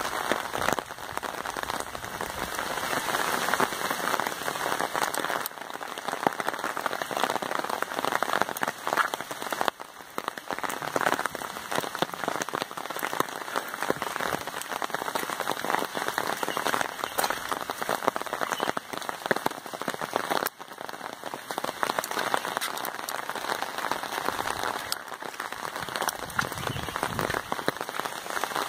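Steady rain falling, a dense patter of many drops.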